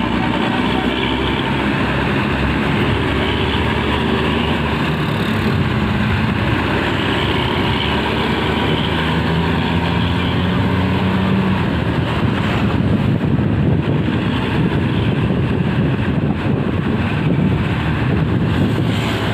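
Heavy road-vehicle engine running steadily under a constant wash of road and traffic noise, its engine note climbing from about eight seconds in to about eleven seconds in, as if accelerating.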